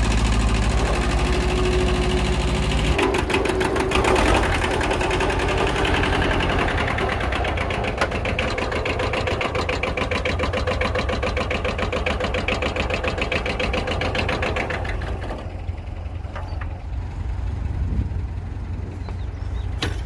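A 16-horsepower compact tractor's small diesel engine runs with a rapid, even clatter as the tractor drives. About fifteen seconds in, the sound turns duller.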